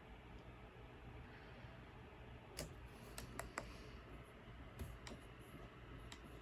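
Near silence over a low steady hum, with about seven faint, scattered clicks beginning about two and a half seconds in.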